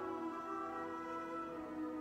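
Background instrumental music, slow and soft with long held notes.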